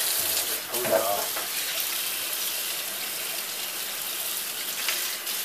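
Kitchen faucet running in a steady stream onto a black plastic portable-TV housing panel in a stainless steel sink, water splashing and hissing evenly as the panel is rinsed by hand.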